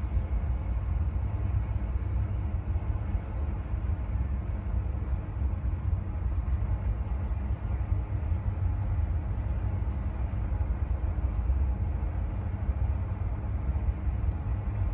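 Search-and-rescue helicopter hovering close by: a steady low rotor rumble while a winchman is lowered on its cable.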